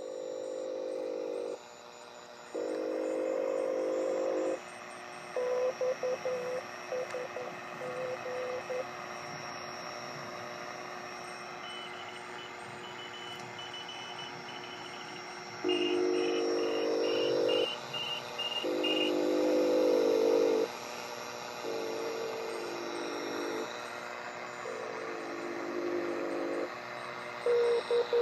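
Trio 9R-59 vacuum-tube shortwave receiver playing off the air: a steady hiss with blocks of pitched tones that switch on and off every second or two. Short high beeps come in around the middle.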